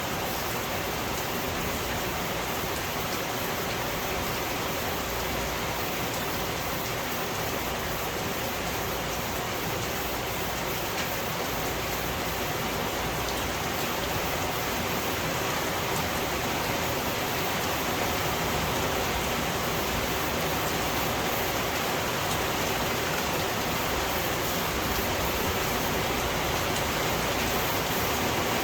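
Steady rain falling, a dense even hiss that gets slightly louder in the second half.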